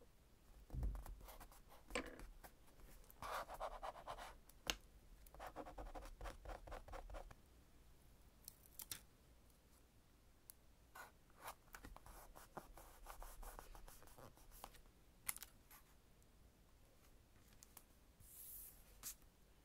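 Tweezer tips scratch and rub a translucent sticker down onto journal paper, in several short runs of fast scratchy strokes, with small clicks of the tweezers tapping the page in between. Near the end there is a brief soft rustle as a sticker is picked up.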